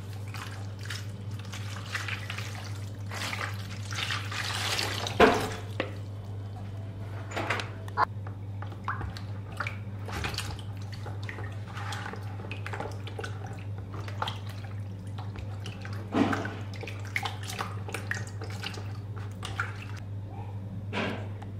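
Water poured from a plastic jug into a clear plastic mixing bowl, splashing onto dry yeast and ending with a sharp clunk about five seconds in. After that, a silicone spatula stirs the yeast water, with light scrapes and taps against the bowl, over a steady low hum.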